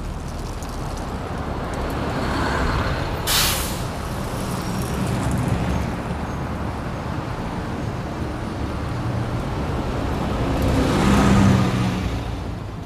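City bus engine running with a low hum, a short air-brake hiss about three seconds in, and the engine growing louder toward a peak near the end before it fades.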